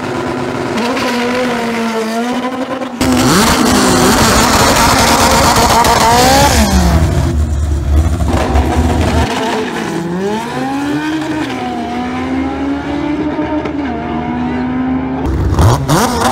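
Naturally aspirated Honda four-cylinder drag race engines revving, in several short clips cut together; the revs climb and drop sharply again and again.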